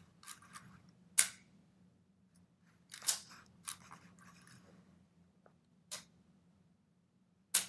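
Metal clicks of a Schulhof 1884 manual repeating pistol's action being worked by hand through its ring trigger, the toggle joint breaking and locking as the bolt cycles. A series of sharp clicks a second or two apart, the loudest about a second in, with faint sliding between them.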